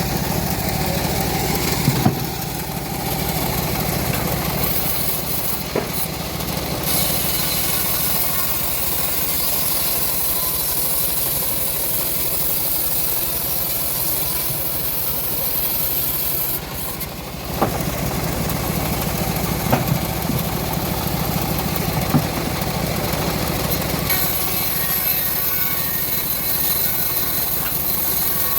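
Homemade bandsaw sawmill running steadily while its blade cuts through a teak log. The level dips briefly about two-thirds of the way in, and a few sharp knocks sound over the running.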